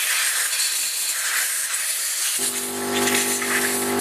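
Compressed air blasting from an air blow gun onto a chainsaw to blow the dirt off it: a loud, steady hiss, with a steady hum joining it about two and a half seconds in.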